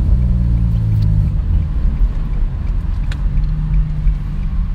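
Nissan 350Z's 3.5-litre V6 engine running as the car drives, heard from inside the cabin as a low, steady engine note.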